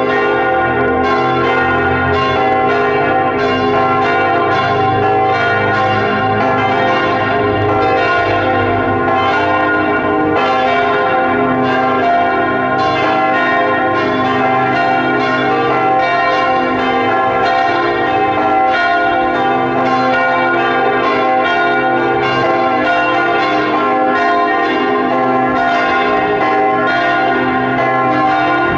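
Several church bells of Sainte-Victoire church pealing together, their strikes overlapping in a continuous jangle of long ringing tones with no pause.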